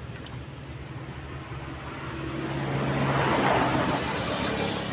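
A steady motor hum, with a broad rushing noise that swells to a peak about three and a half seconds in and then fades, like a vehicle passing.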